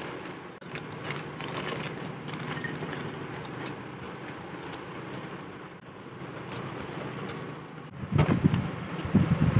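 A steady low hum from an induction cooktop, with plastic noodle and sauce packets crinkling and being torn open. About eight seconds in, a louder, irregular low bubbling starts as instant noodles boil in an open stainless saucepan.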